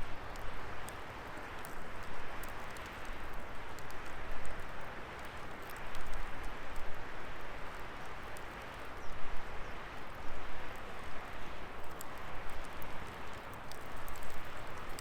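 Wood fire burning: a rushing hiss with many sharp, irregular crackles and pops, swelling and easing in loudness.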